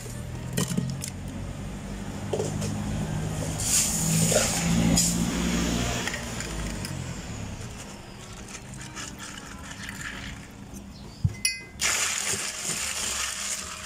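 Light clinking and clattering of drink-making utensils, cups and ice over a steady low hum, with a sharp clatter about eleven seconds in.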